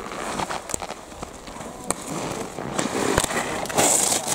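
Giant slalom ski edges scraping and carving on an injected icy course, with scattered sharp clicks. The scraping swells to a loud hiss about four seconds in, as the racer passes close.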